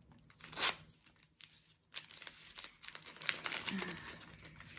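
Brown kraft paper wrapping torn and crinkled by hand as a candle is unwrapped: a sharp rip about half a second in, then irregular crackling rustle from about two seconds on.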